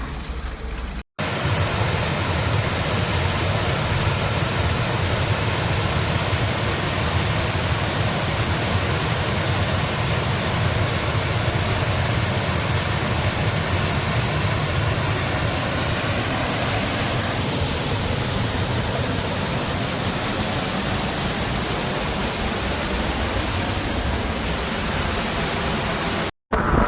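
A steady, loud rushing noise with no tone or rhythm in it, starting abruptly about a second in and stopping just before the end.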